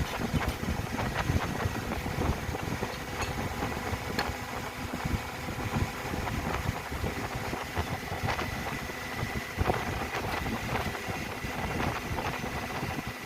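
A motor-driven machine running steadily with a low drone and a faint high steady tone, while scattered sharp clicks and knocks come throughout.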